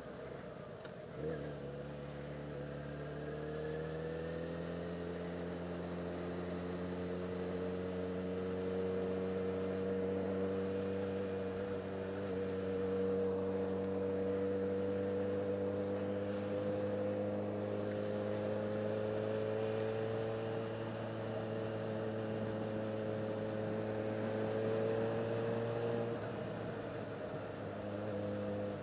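Yamaha XJ6's inline-four engine under way. A brief knock comes about a second in, then the engine note rises for a few seconds and holds steady at a cruise. Near the end it falls away, then picks up again.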